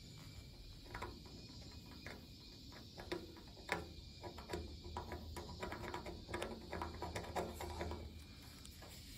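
A hooked metal pick scraping and picking around a stud on a car's painted steel engine lid: a quick run of short, faint scratches and clicks, sparse at first and denser from about three seconds in until near the end.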